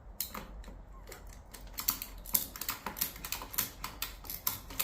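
A rapid, irregular run of sharp clicks and ticks from hands-on work with tools or small hard parts. It is sparse at first and grows denser about two seconds in.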